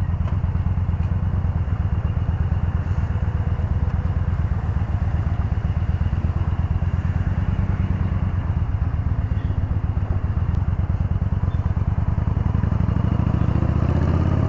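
Yamaha Bolt's air-cooled V-twin engine running steadily while being ridden, a continuous low rumble with even firing pulses.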